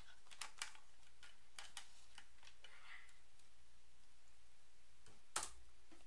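Keystrokes on a backlit computer keyboard: a few light, scattered key taps in the first three seconds, then one louder key press a little over five seconds in, the Enter that runs the command.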